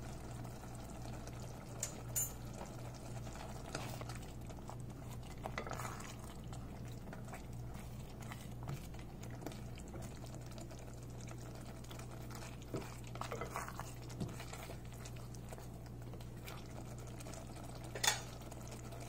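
Thick mutton curry simmering in a ceramic casserole dish, with a spoon stirring it and clinking against the dish now and then, the sharpest clink near the end. A steady low hum runs underneath.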